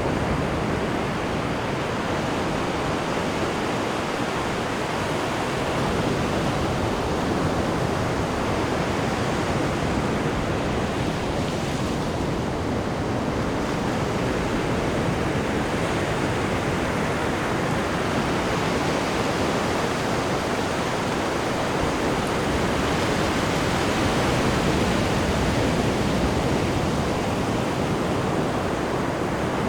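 Ocean waves breaking on a rocky shore, a continuous surf wash that swells and eases slowly, with a louder surge near the end.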